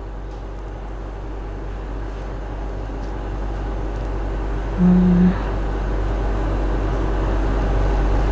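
A steady low rumble of background noise that slowly grows louder, with one short flat low hum about five seconds in.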